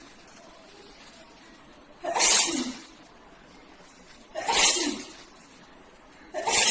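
A woman sneezing again and again, one sneeze about every two seconds: three sneezes, the last cut off at the end. It is a sneezing fit that does not stop.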